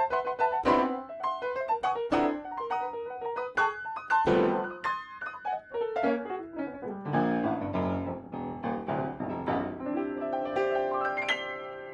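Solo piano accompaniment: quick staccato notes with heavy low chords struck now and then, then a run of notes descending in pitch.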